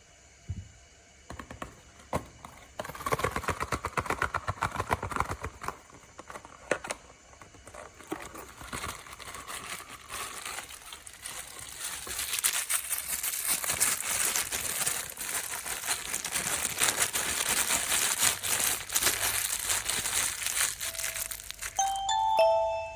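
Plastic and paper packaging of a blind box crinkling and tearing as it is unwrapped by hand. It starts with a few scattered clicks, and the crinkling grows denser and louder from about halfway through.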